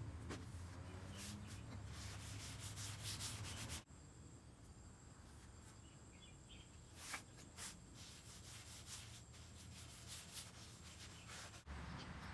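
Faint rubbing of a gloved hand and rag wiping wood stain onto bare wooden boards in irregular strokes, over a low background hum. The sound drops suddenly about four seconds in and picks up again near the end.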